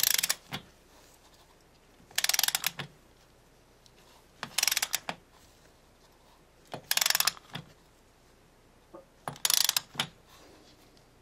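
Ratchet of a torque wrench clicking in five short bursts about two and a half seconds apart, each followed by a single click, as the handle is swung back between strokes tightening an oil filter toward 14.5 lb-ft.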